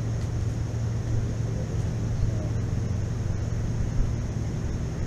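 Steady low background rumble with a constant low hum, unchanging throughout.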